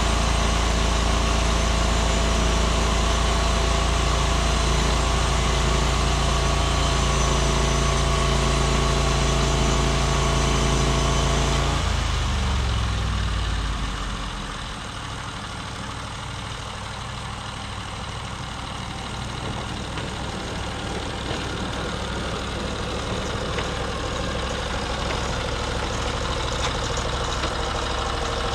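Norwood MX34 bandsaw mill's engine running at a steady high speed, then throttled down about twelve seconds in, its pitch sliding down as it settles to a lower idle.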